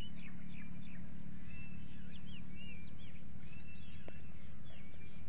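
Flock of half-grown chickens peeping: many short, high chirps that rise and fall, overlapping one after another, over a steady low hum.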